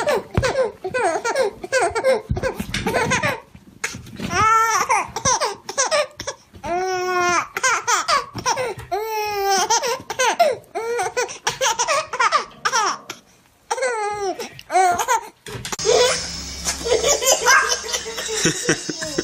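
Baby laughing: one bout of high, hiccuping chuckles and squeals after another, with short breaths between. About three-quarters of the way through, the sound cuts to other laughter over a steady background hum.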